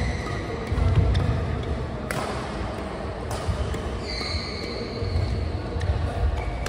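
Badminton singles rally: two sharp racket hits on the shuttlecock about two and three and a half seconds in, with low thuds of footwork on the court and a long high shoe squeak from about four seconds in, echoing in a large hall.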